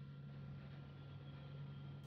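Quiet room tone with a faint, steady low hum and nothing else happening.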